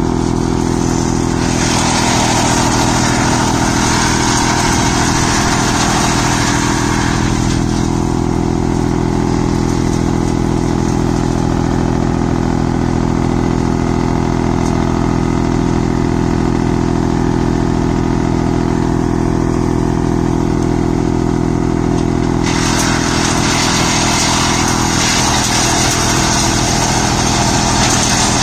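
Tractor-driven wood chipper running with a steady low hum. Louder, harsher noise from a couple of seconds in to about seven, and again from about 22 seconds on, as green branches are fed in and shredded.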